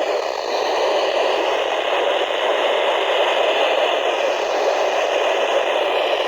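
Weather radio receiver giving a steady hiss of static, with the distant NOAA Weather Radio broadcast's voice lost under the noise of a weak signal.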